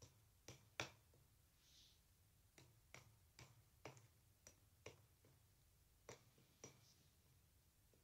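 A sang shikan bird cracking almonds with its beak: faint, sharp cracks and clicks, about a dozen at irregular intervals, as the shells break.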